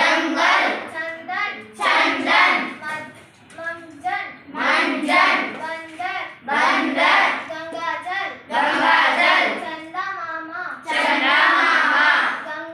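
A young girl reading Hindi vocabulary words aloud one after another, in short phrases with brief pauses between them.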